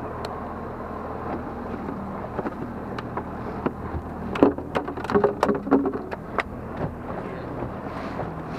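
A cluster of knocks and thumps on a plastic cooler as a freshly caught flounder is stowed and the lid is handled, loudest about halfway through. Under it runs a steady low hum with water and wind noise.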